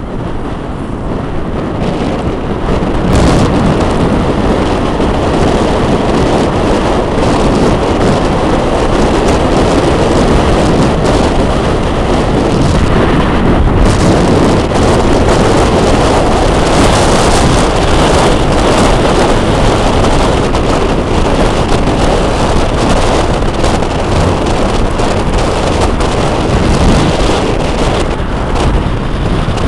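Loud, steady rush of wind buffeting the microphone, mixed with tyre and road noise from a moving car. It swells over the first few seconds, then holds steady.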